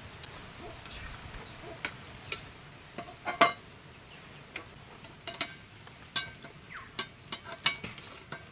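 Irregular sharp clinks and taps of a utensil against a dish, one or two a second, over a faint steady hiss.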